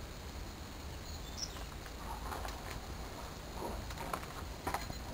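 Quiet outdoor background: a steady low rumble with faint voices and a single short high peep about a second and a half in.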